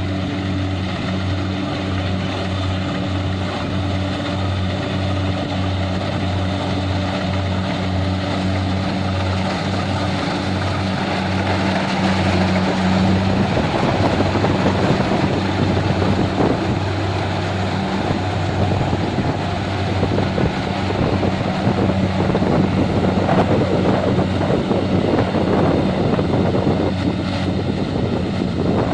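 Engine of a rice harvesting machine running steadily with a low, even hum, joined by a louder rushing noise from about halfway through.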